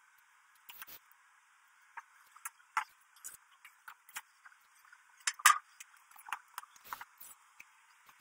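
Irregular light clicks, taps and clatters of wood pieces and tools being handled in a workshop. The loudest cluster comes about five and a half seconds in.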